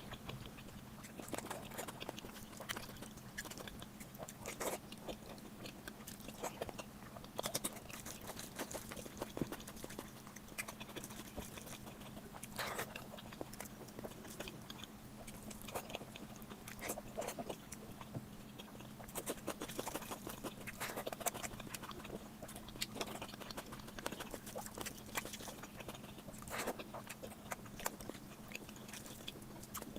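Close-up chewing and biting sounds of someone eating mutton fat curry with rice, irregular mouth clicks and smacks throughout, over a faint steady low hum.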